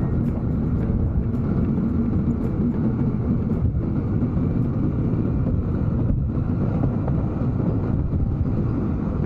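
Harley-Davidson Pan America V-twin engine running steadily while the bike is ridden, mixed with a rumble of wind and road noise.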